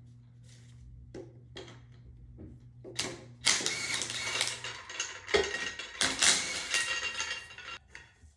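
Hand ratchet on a 22 mm socket backing a knock sensor out of a 6.0 LS engine block: a few separate clicks, then two long runs of rapid ratchet clicking, starting about three and a half and six seconds in.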